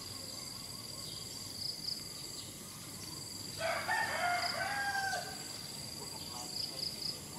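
A pitched animal call of about a second and a half, in several rising and falling parts, a little past the middle, over a steady high drone of insects.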